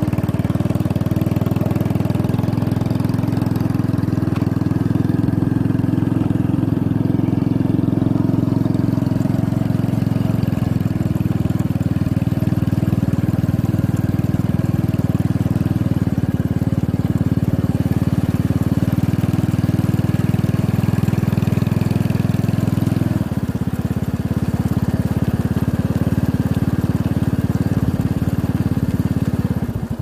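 Vehicle engine running steadily at speed, heard from the moving vehicle as a loud, low drone; about 23 seconds in the note drops slightly.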